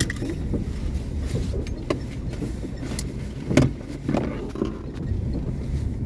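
Renault Duster cabin noise while driving slowly on snow: a steady low road rumble with a series of short creaks and squeaks, the loudest about three and a half seconds in. The driver puts the creaking down to the suspension struts stiff in the frost and to packed snow rubbing.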